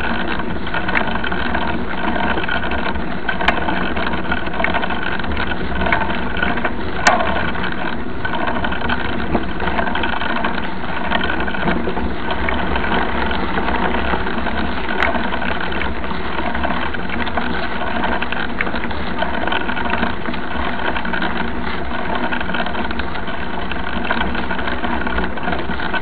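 Steady drone of travel along a dirt road, with wind buffeting the microphone and a few short clicks.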